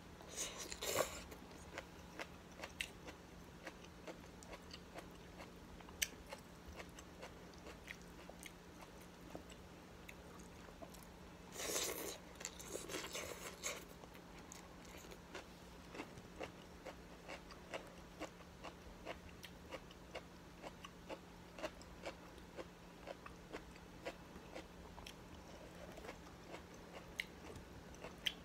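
Close-up eating sounds of a person eating fried rice noodles: strands slurped in twice, briefly about a second in and for a couple of seconds around the twelve-second mark, with steady wet chewing clicks and lip smacks between.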